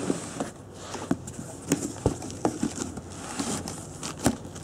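Bubble wrap and cardboard box flaps being handled as packing is pulled out: irregular crinkling and rustling with scattered soft knocks and clicks.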